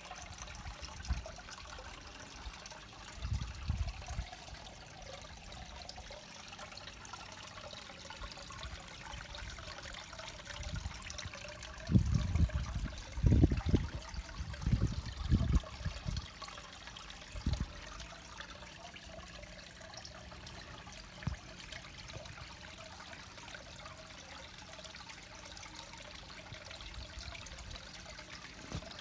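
Steady trickle of water spilling from a bog filter into a garden pond. Several low thumps sound around the middle.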